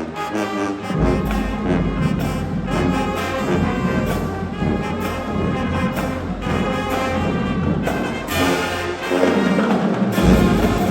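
High school marching band brass section playing loud, sustained chords, with trumpets and trombones on top. A deep bass part comes in about a second in, falls away briefly near the end, then the full band comes back loud.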